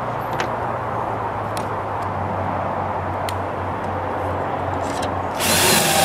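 Steady low engine-like hum over outdoor background noise, then a loud, harsh rushing noise for about a second near the end.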